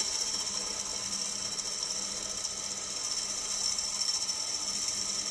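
120-grit diamond-impregnated grinding wheel skimming the face of a wet metal clutch plate as it turns slowly on a drill-driven rotary table, surfacing off the marks: a steady high grinding hiss over a steady motor hum.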